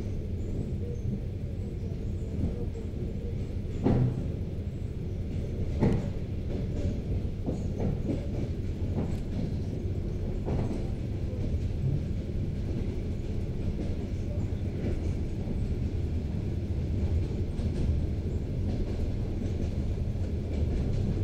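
ED4MK electric multiple unit running, heard from inside the passenger car: a steady low rumble of wheels on rails. A few sharp knocks stand out, the loudest about four and six seconds in.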